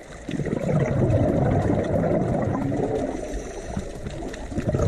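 Diver's exhaled bubbles rumbling and gurgling, heard underwater through the camera: a long burst, then a second one starting near the end.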